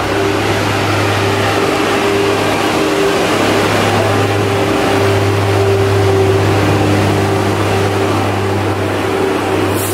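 A steady mechanical hum: a low drone with a higher tone held over it and an even rushing noise, unchanging in level.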